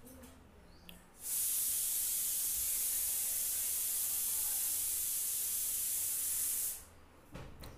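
A steady high-pitched hiss, beginning about a second in, holding level for about five seconds, then fading out.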